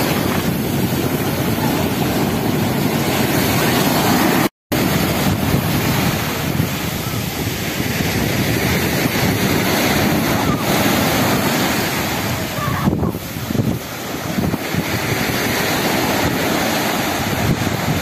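Sea surf breaking and washing up the beach in a steady roar, with wind buffeting the microphone. The sound cuts out completely for a moment about four and a half seconds in.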